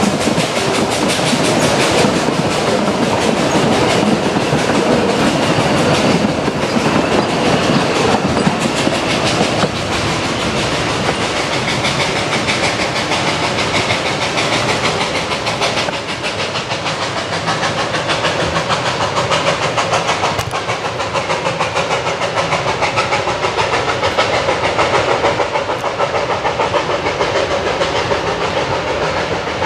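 Puffing Billy's narrow-gauge wooden passenger carriages rolling past, their wheels clattering steadily over the rail joints. About ten seconds in the clatter drops a little in level and carries on.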